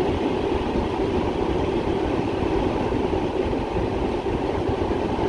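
Heavy rain falling on a car, heard from inside the cabin over the car's steady low running rumble: a constant, even noise with no breaks.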